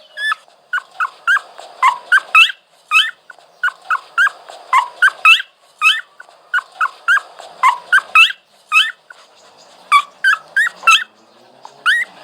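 Dog whining: a rapid string of short, high, rising whimpers and yips, about three a second, in runs broken by brief pauses.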